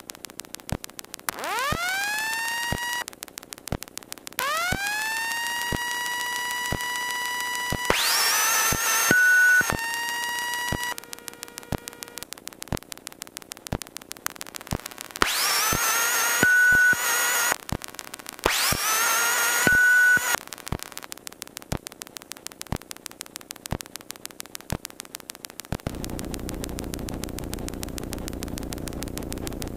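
An electrical whine that rises in pitch and levels off, switched on and off five times, with a short high beep inside three of the spells, over steady ticking interference at about two to three ticks a second. Near the end a rougher hiss comes in.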